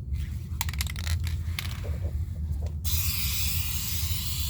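Duplicolor aerosol spray can putting on a light first coat of base-coat paint: clicks and short spurts of spray in the first half, then a steady spray hiss from about three seconds in. A steady low hum runs underneath.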